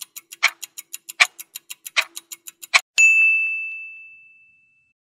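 Countdown-timer sound effect: rapid ticking, about eight ticks a second with a louder tick every three-quarters of a second, then about three seconds in a single bell-like ding that rings out and fades over about a second and a half, marking time up as the answer is revealed.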